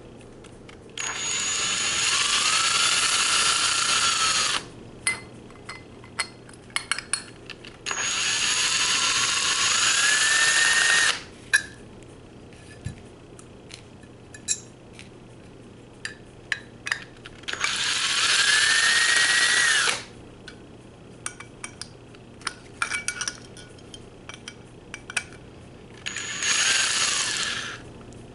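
Cordless drill on a low torque setting backing out the Phillips screws of a metal RC gearbox case in four separate runs, one per screw. Each run has a motor whine that rises as it spins up and then holds. Between runs there are small clicks and rattles of screws and parts being handled.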